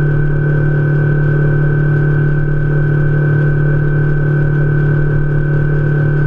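Outboard motor pushing a fishing boat at steady cruising speed: a constant low drone with a steady high whine above it, never changing in speed.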